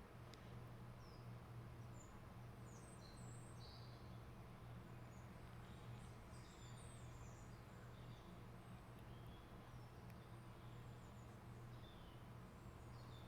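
Faint birds chirping and twittering in short, high calls scattered throughout, over a steady low hum.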